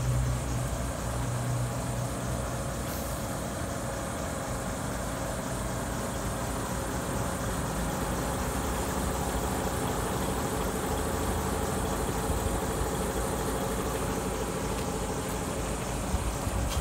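Diesel engine of a DAF XF106 460 tractor unit, a PACCAR MX-13, idling steadily.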